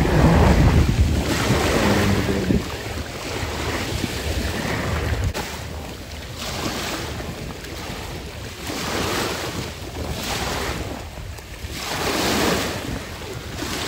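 Strong wind buffeting the microphone over the wash of sea waves. The wind rumble is loudest for the first two seconds or so, then comes and goes in gusts.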